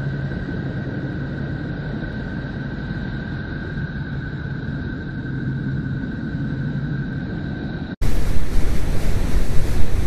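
NASA 'space sound' of Neptune, the Voyager-data sonification: a steady low drone of noise with a few faint held tones above it. About eight seconds in it cuts off sharply and a louder, harsher rushing noise takes over.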